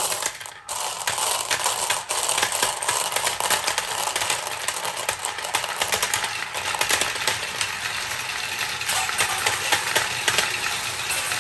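Glass marbles poured from a box into a clear plastic funnel with a loud clatter at the start, then a dense, continuous clicking and rattling as the marbles run down the slot-together plastic track of a Galt Super Marble Run.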